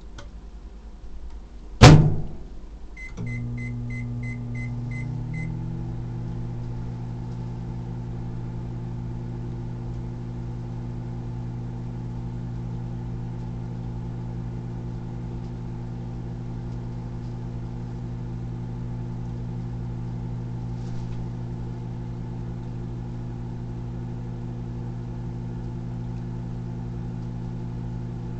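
Microwave oven door shut with one loud clack about two seconds in, then a quick string of about eight keypad beeps as the time is keyed in. The oven then starts and runs on high with a steady hum.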